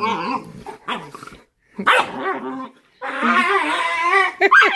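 Cane Corso mother and puppy play-fighting: short growls and yips, then from about three seconds in a longer wavering growling cry that ends in a sharp bark.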